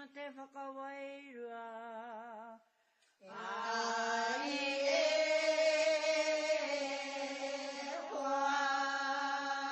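Mōteatea, a traditional Māori chant, sung in long held notes with a wavering ornament on the pitch. The voice steps down and breaks off for a breath about two and a half seconds in, then comes back in on a rising note and holds.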